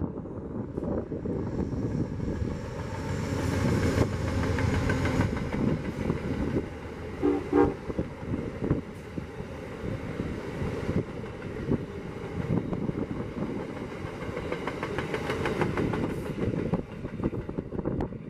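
Amtrak passenger train with silver Amfleet coaches passing close by: a steady rumble with the continuous click and clatter of wheels over the rails, and a brief horn blast about seven seconds in, the loudest moment.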